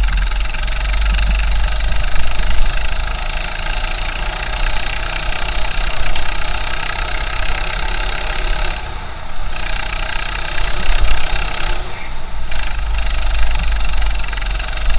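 200cc four-stroke go-kart engine running under throttle, its note rising and falling, easing off briefly about nine seconds in and again about twelve. It is heard muffled through a waterproof action-camera housing, with a heavy rumble underneath.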